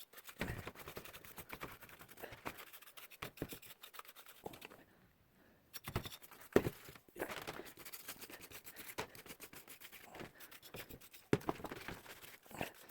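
Paint brush scrubbing isopropyl alcohol into caked cooking grease on microwave-oven electrical parts: quick, irregular scratching strokes, with a pause of about a second midway and one sharper click just after it.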